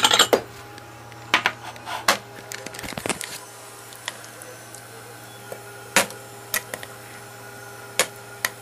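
Kitchen dish and utensil clatter: a ceramic bowl clinking as it is taken out, then a wooden spoon knocking and scraping against a metal pot of chili. It comes as scattered sharp clacks about a second apart, over a steady low hum.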